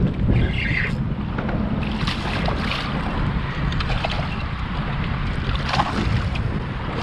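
Wind rumbling on the microphone over water on a fishing kayak, with scattered light clicks and knocks.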